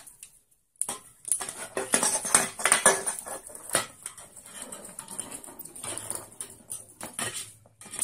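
Aluminium drink can clattering and tapping on a wooden floor as a sun conure pushes and pecks it along with its beak. A busy run of knocks and rattles starts about a second in and thins to lighter, scattered taps in the second half.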